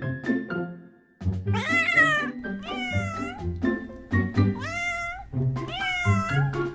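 A kitten meowing about four times, high calls that bend up and then fall, over background music of plucked notes.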